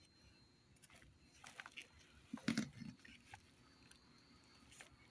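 Bag of wood-fibre cat litter crinkling as it is handled, with a cluster of louder crackles and a soft thump about halfway through.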